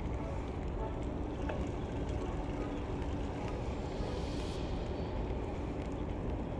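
Wind buffeting the camera's microphone during a bicycle ride, with bicycle tyres hissing on wet asphalt; the hiss swells briefly about four seconds in.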